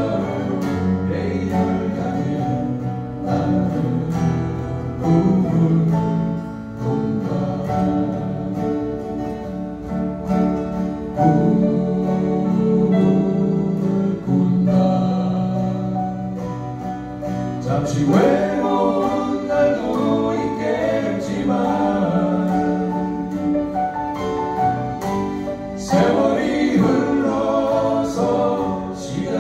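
A small acoustic band playing live: two acoustic guitars and a bass guitar, with singing over them.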